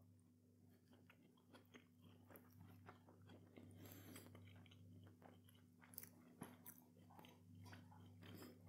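Faint chewing of a mouthful of burger: soft, irregular mouth clicks over a low steady hum.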